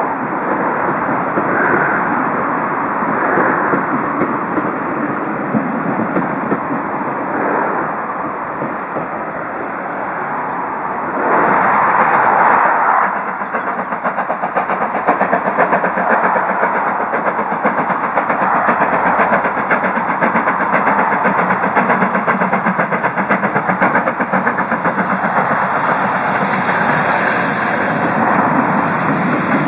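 A passing train rumbling along the line, with a loud rush of noise about twelve seconds in. Then the steam locomotive 70000 'Britannia', a BR Standard Class 7 Pacific, approaches and passes close by, its exhaust beating in a quick, regular rhythm, with strong steam hiss near the end.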